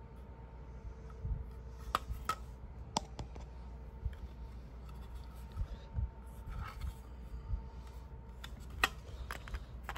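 Light clicks and taps of hard plastic as the red housing and clear lens of a disassembled SpectrAlert Classic horn strobe are turned over in the hand, with soft handling rustle and a faint steady hum underneath. The sharpest clicks come about two and three seconds in and again near the end.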